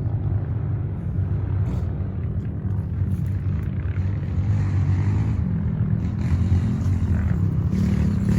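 A vehicle engine running steadily, a continuous low rumble.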